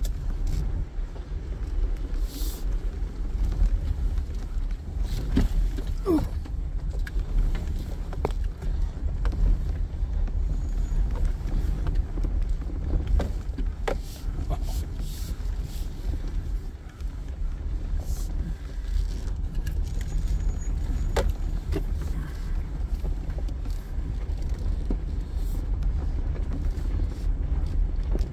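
Jeep heard from inside the cab, crawling over a rough dirt trail: a steady low engine and road rumble, with occasional sharp knocks and rattles from the body and suspension on the bumps.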